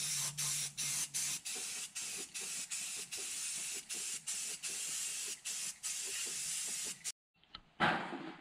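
Spray paint hissing in short passes with many brief breaks as the spray is stopped and started, while sheet-metal heater box parts are painted. The spray stops about seven seconds in, and a short louder noise follows near the end.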